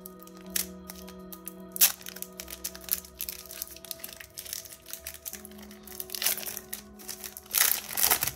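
Foil Pokémon booster pack crinkling and crackling as it is handled and opened, with a sharp crackle about two seconds in and a longer, louder crackle near the end. Background music with sustained notes plays underneath.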